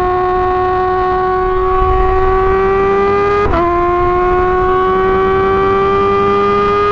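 2017 Yamaha R6's 600 cc inline-four, through an Akrapovic exhaust, running at high revs under acceleration. Its high, steady wail climbs slowly in pitch, with a quick upshift about halfway through that briefly drops the note before it climbs again.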